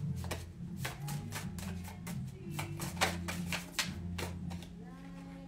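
A tarot deck being shuffled by hand, the cards making a run of irregular sharp clicks and slaps that thin out near the end, over background music with sustained low notes.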